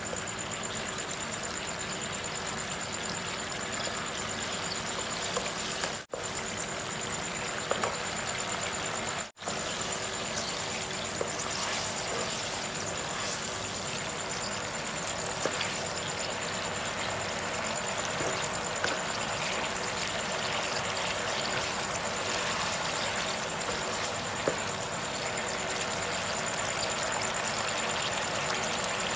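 Canned fish in tomato sauce simmering in a wok: a steady bubbling sizzle with occasional small pops, and a thin high whine above it. The sound cuts out briefly twice, about six and nine seconds in.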